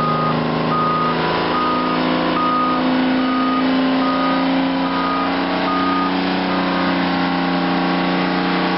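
Euclid R-22 haul-truck diesel engine running under load as the truck moves, its pitch rising slightly about a second in, with a backup alarm beeping a little more than once a second that fades out near the end.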